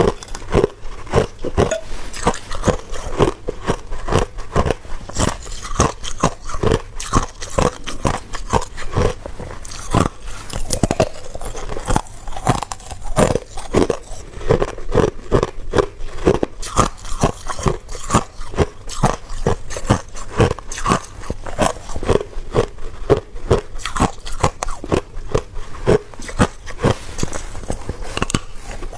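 Ice being bitten and chewed close to the microphone: a continuous run of sharp, irregular crunches and cracks, several a second.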